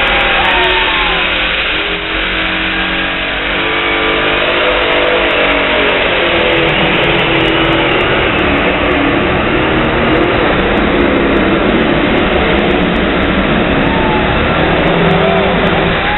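Pulling tractor's engine running flat out through a pull, its pitch climbing a few seconds in and then held at a loud, steady high rev.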